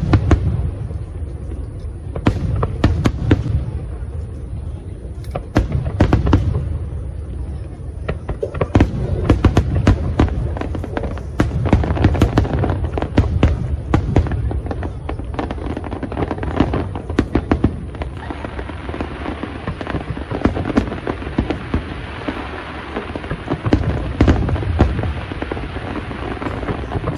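Fireworks display going off: a rapid string of sharp bangs over deep booming shell bursts. In the second half a thick, continuous crackling fills in between the bangs.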